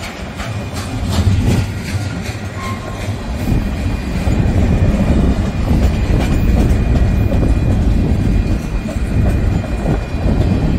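Freight train of covered hopper and tank cars rolling past close by: a steady heavy rumble of steel wheels on rail, louder after about three seconds, with clicks as the wheels pass over rail joints, mostly in the first few seconds.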